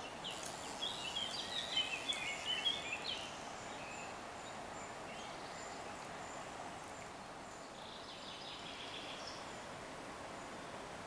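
A small songbird sings a quick, twittering run of high chirps in the first few seconds, and a shorter chirping phrase comes later, over a steady outdoor hiss with a thin, high, even tone like an insect.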